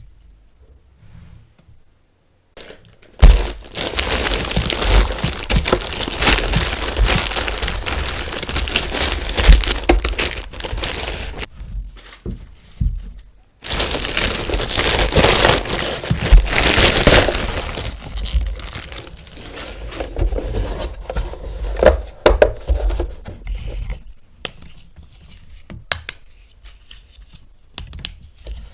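Plastic packaging crinkling and tearing as a toy is unwrapped by hand, in two long stretches with a short pause between, followed by scattered light clicks and taps of plastic parts.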